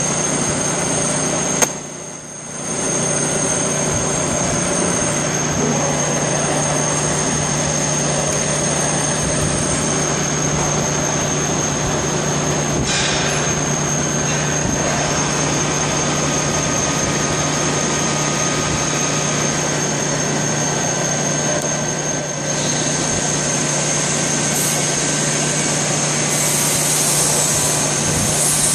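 Steady running noise of workshop machinery, with a constant low hum and a high steady whine. A sharp click about two seconds in is followed by a brief drop in the noise, and there is a smaller dip near the end.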